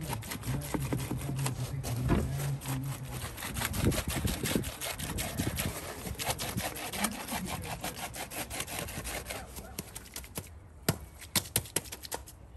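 Wooden hand tamper worked rapidly over wet concrete, with a dense run of scraping and tapping as the board rubs and pats the mix. It thins out toward the end, where a few sharper knocks stand out.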